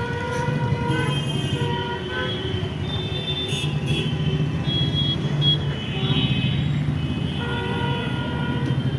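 A vehicle engine running with a steady low rumble, while horns sound in repeated held toots of half a second to a second each, on and off throughout.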